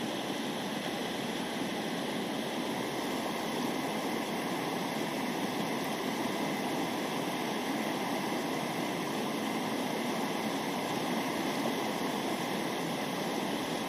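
Mountain stream rushing over rocks in a shallow riffle, a steady, even water noise.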